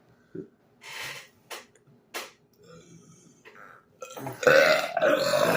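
A man's loud, drawn-out burp starting about four seconds in, after a short hiss and a couple of faint clicks.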